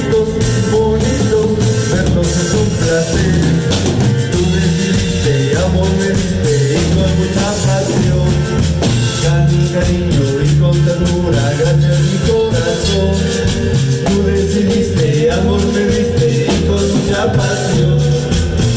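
Cumbia band music in an instrumental stretch without lyrics: a repeating bass line under steady percussion, with a melodic lead line above.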